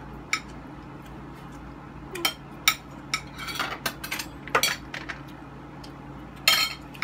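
Fork and spoon clinking and scraping on white plates as food is eaten: a scattering of sharp clinks at irregular intervals, with a louder scrape about six and a half seconds in.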